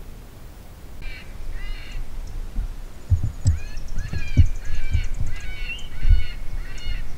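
Short animal calls repeated about twice a second, several overlapping at different pitches, starting about a second in, with low thumps underneath.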